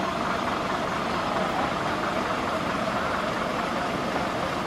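Fire truck engine running steadily, an even, unbroken drone.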